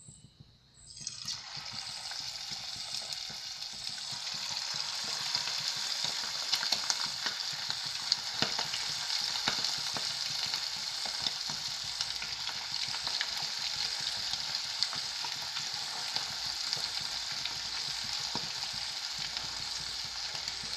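Batter-coated chicken pieces sizzling as they fry in hot oil, with scattered crackles and pops. The sizzle starts about a second in and grows louder over the next few seconds before holding steady.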